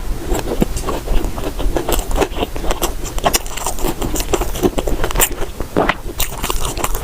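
Close-miked chewing and crunching of a nut-topped bread, an irregular run of crisp little crunches and mouth clicks.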